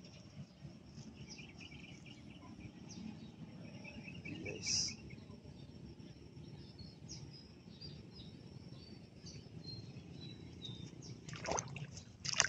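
Open-field ambience: small birds chirping faintly and intermittently over a low steady rumble, with one louder high chirp just under five seconds in. A few sharp rustling knocks come near the end.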